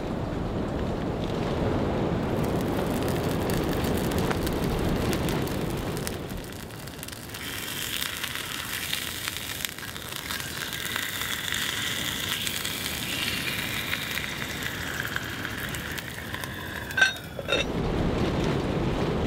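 Bacon-wrapped steak sizzling in a cast-iron skillet for several seconds in the middle, between stretches of a steady low rushing noise. Two sharp clicks come just before the rushing returns near the end.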